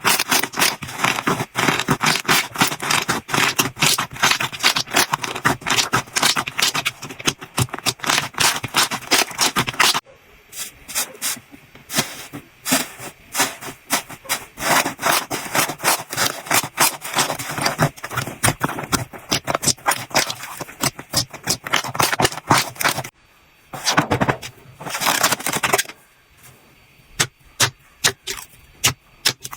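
Slime being squeezed and worked by hand: a dense run of wet clicks and crackles. It thins out about a third of the way in, and there is a louder burst near the end.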